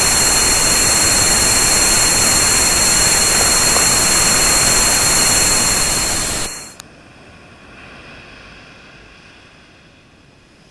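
Tinnitus masking sound: a loud, steady hiss of white noise with several steady high-pitched tones over it. About six and a half seconds in it drops abruptly to a much fainter hiss.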